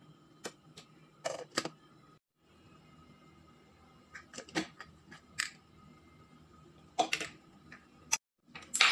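Scattered clicks and knocks of kitchen work on a wooden cutting board: a chef's knife tapping the board and a plastic food-processor bowl being handled and set down. No motor is heard running.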